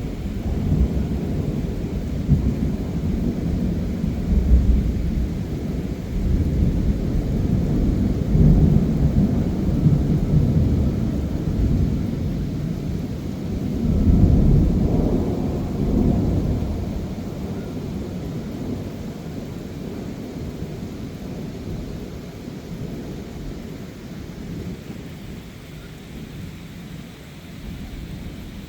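Thunder rolling and rumbling in long deep peals during a thunderstorm with heavy rain, swelling loudest twice and then dying away near the end, over a steady hiss of rain.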